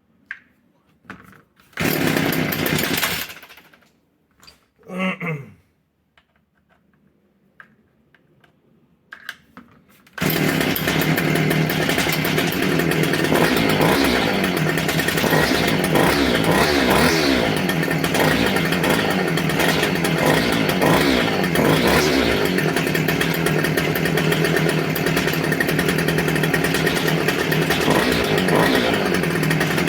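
Homelite i625cd trimmer's small two-stroke engine: a few short noises and a brief sputter, then about a third of the way in it starts and runs steadily, its speed rising and falling several times as the throttle is worked. It revs up and drops back to idle cleanly, the sign that the replacement carburetor has cured the starting and running fault.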